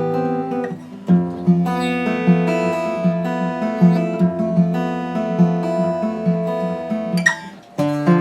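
Restored Espana acoustic guitar played fingerstyle: plucked notes ringing over held chords, with a chord change about a second in and another near the end, preceded by a brief string squeak as the fretting hand shifts.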